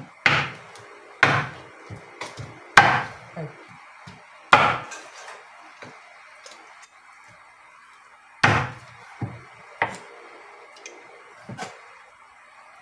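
Large kitchen knife chopping raw chicken on a wooden cutting board: sharp, heavy knocks at irregular intervals, with a pause of about three seconds in the middle.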